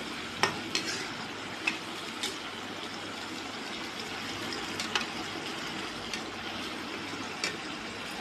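Tomato and spice masala sizzling in oil in a kadhai, with a perforated metal slotted spoon clicking and scraping against the pan a few times as it is stirred.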